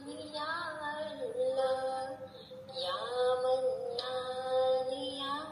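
A high female voice sings a slow devotional chant in long, held notes that slide from one pitch to the next.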